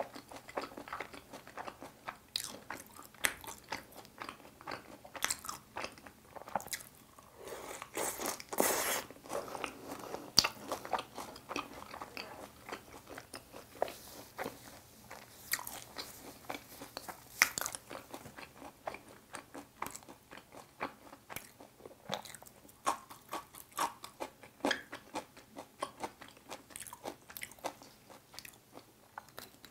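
Close-miked eating: a person biting and chewing sauced fried chicken, with many irregular sharp crunches and clicks, busiest about a quarter of the way in.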